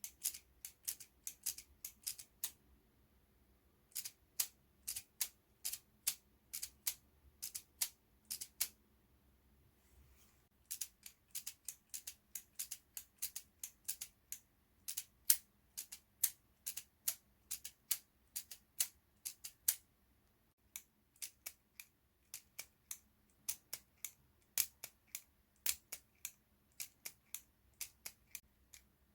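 Sharp plastic clicks and snaps of a LEGO Technic single-action revolver's mechanism being worked by hand, several a second in uneven runs, with brief pauses.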